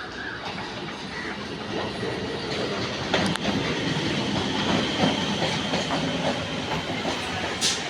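Indian Railways local train running, its wheels clattering over the rail joints. A sharp click comes a little after three seconds, and a faint high steady whine joins soon after.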